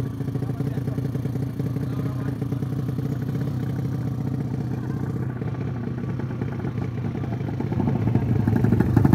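Motorcycle engine running steadily with a fast, even firing beat, growing louder about eight seconds in as the bike comes closer.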